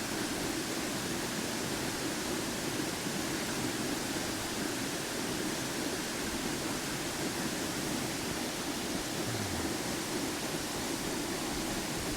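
Waterfall cascading, a steady loud rush of falling water.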